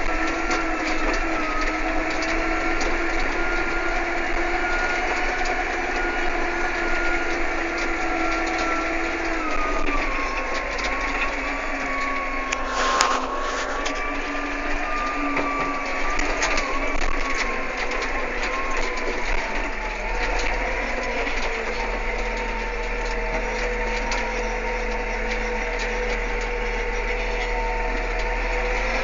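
Small tractor's engine running steadily as it drives, heard from the driver's seat, with a whining mechanical note that dips slightly in pitch about ten seconds in. A single sharp knock about thirteen seconds in.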